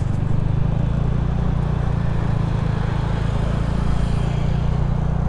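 Motorbike engine running steadily while riding, with road and wind noise.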